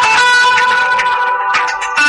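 A smartphone ringtone playing: a plucked-guitar melody with a steady backing, thinning out briefly near the end before the phrase starts again.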